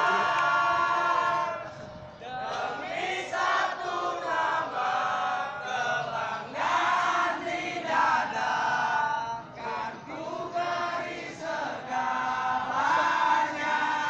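A crowd of football supporters singing a chant together in unison, in phrases with short pauses between them.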